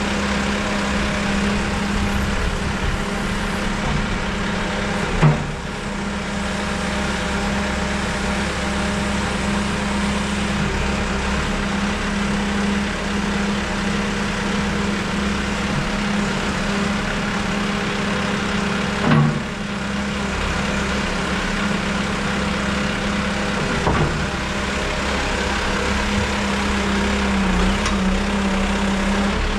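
JCB 4CX backhoe loader's diesel engine running at a steady speed, with a sharp knock about five seconds in, another loud one just under twenty seconds in, and a smaller one a few seconds after that.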